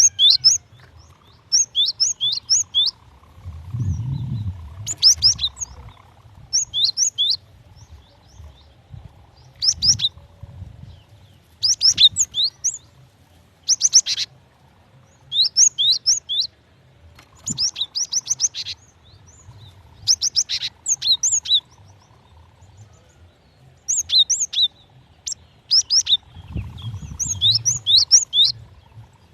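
Female cinereous tit calling: short groups of three to five quick, high, down-slurred chirps, repeated every second or two. This is the call a female gives to draw males.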